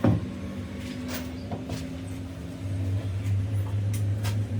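A motor or engine running with a steady low hum that gets louder about two and a half seconds in, with a sharp knock at the start and a few light clicks.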